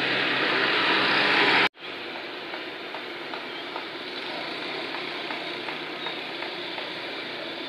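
Street traffic noise. A louder stretch of vehicle engine noise cuts off abruptly about one and a half seconds in. A quieter steady traffic hum follows, with faint scattered ticks.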